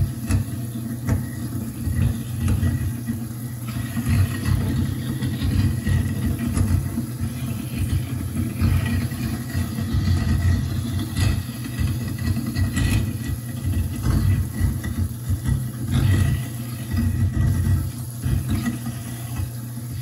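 InSinkErator garbage disposal running with a steady motor hum and low churning rumble as it grinds popcorn and other food scraps washed into it, with irregular clicks as pieces drop in.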